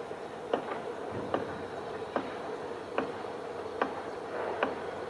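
Indian Railways electric train running with a steady hum and a sharp, evenly spaced click a little more often than once a second.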